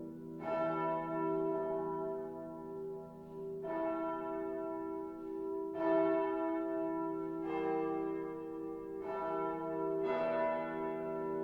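Full peal of the St. Andreas church bells: several bells ringing together, fresh strikes every second or two overlapping as each tone rings on.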